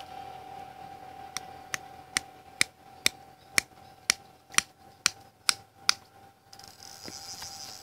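A fishing reel's line clicker ticks about twice a second, getting louder, as a fish pulls line off the spool on a bite. The ticking stops about six seconds in.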